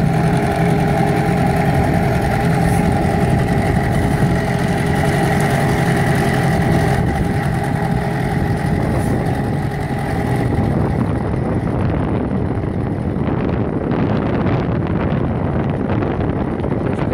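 Golfstream (Parsun) T8 two-stroke 8 hp outboard motor running as the inflatable boat pulls away at low speed, with a steady engine note. About ten seconds in, a rushing noise of wind and water covers the engine note as the boat picks up speed.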